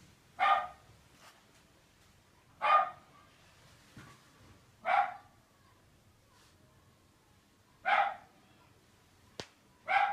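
A dog barking: five single barks spaced two to three seconds apart, with one sharp click shortly before the last bark.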